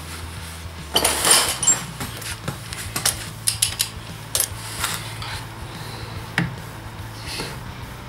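Irregular metallic clinks, knocks and scrapes of hand tools on a motorcycle clutch: a socket on an extension being fitted to the clutch hub nut, with a clutch holding tool clamped on the basket. A longer scrape comes about a second in, and another near the end.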